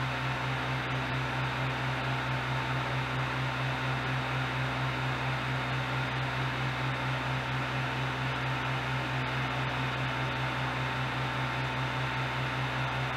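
Ender 3 Pro 3D printer running with a steady hum, a low pulsing tone under a few faint steady higher tones, while its extruder stepper motor is jogged from the control knob and turns.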